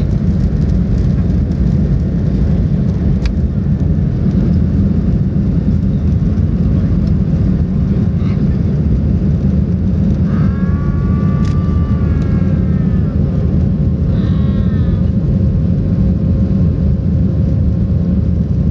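Cabin noise of a Boeing 737-700 taking off and climbing out: its CFM56-7B turbofans at takeoff thrust and the rush of air make a loud, steady rumble with a faint steady hum above it.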